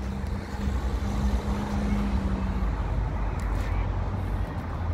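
Steady low outdoor rumble on the phone's microphone, with a low steady hum that stops a little past halfway.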